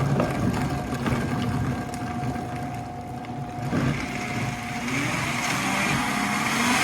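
Countertop blender motor running, blending frozen bananas and strawberries in juice; its pitch rises near the end.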